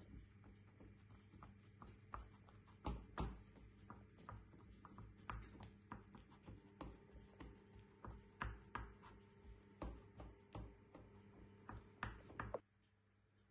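Fingertips pressing and dimpling oily pizza dough in a metal pan: irregular soft pats and taps over a low steady hum, cutting off abruptly near the end.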